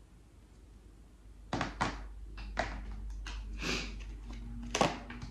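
A deck of tarot cards being handled and shuffled in the hands over a table: a string of sharp taps and knocks starting about a second and a half in, with a brief rustle of cards near the middle.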